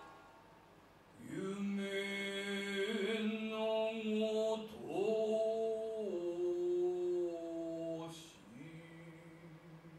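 A man's voice chanting in biwa narrative singing (biwa-gatari): three long held phrases, each sliding up into its note and then sustained with a slight waver. The ring of a biwa stroke fades away in the first second.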